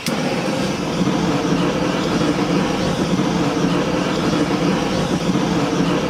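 Handheld gas torch burning with a steady, loud rush of flame as it preheats graphite ingot molds; it starts suddenly and holds level.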